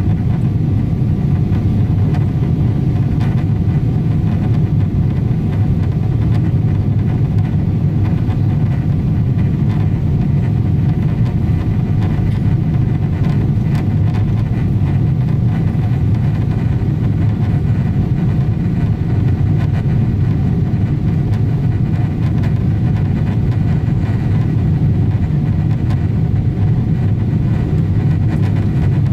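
Boeing 777-200 cabin noise during the climb after takeoff: a steady low rumble of engine and airflow, with faint steady hum tones above it and no change throughout.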